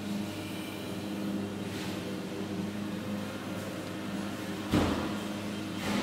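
Steady low drone of heavy diesel machinery running at a concrete slab pour. A single sharp knock comes a little under five seconds in.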